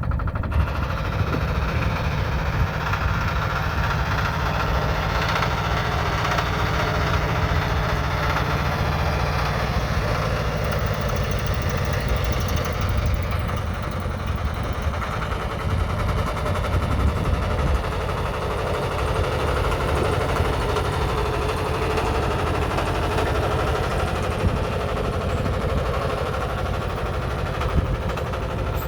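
1959 Porsche Diesel Junior's single-cylinder 822cc diesel engine running steadily.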